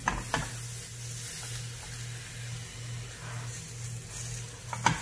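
Pão de queijo dough frying gently in a nonstick pan, a faint sizzle over a steady low hum, with a few light taps of a silicone spatula against the pan near the start and just before the end as the filled dough is folded over.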